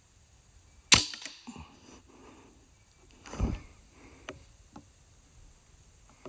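A single shot from a .25-calibre Edgun Leshiy 2 PCP air rifle about a second in, a sharp crack. It is followed by a few light clicks and, about two and a half seconds later, a duller thump.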